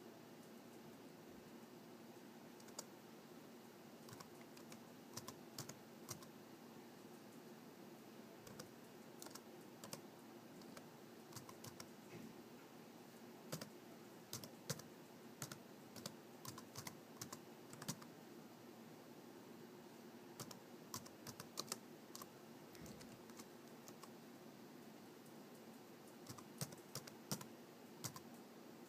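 Typing on a laptop keyboard: irregular key clicks, some in quick runs, over a faint low steady hum.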